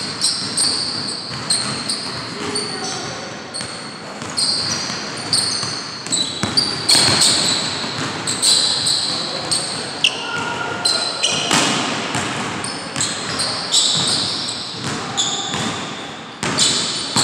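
Basketball dribbled on a hardwood gym floor, with many short, high sneaker squeaks as the players cut and stop, in a large indoor gym.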